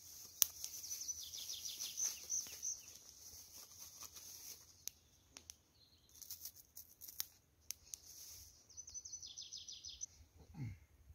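Small songbirds singing, with fast trills of high chirps in the first few seconds and again near the end. Scattered sharp clicks sound between them, and a short falling sound comes just before the end.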